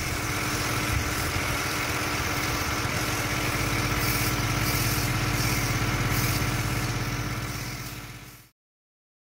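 Gas pressure washer engine running steadily under a steady high hiss of spraying water. The sound fades out near the end.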